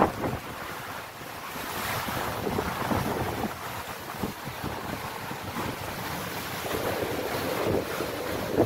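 Strong, gusty wind buffeting the microphone, with a sharp blast right at the start, over rough harbour water washing and slapping against a quay and the hull of a moored boat.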